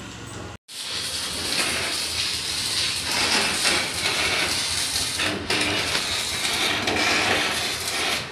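Electric arc welding on a steel lift frame: a steady, loud hiss that starts about half a second in.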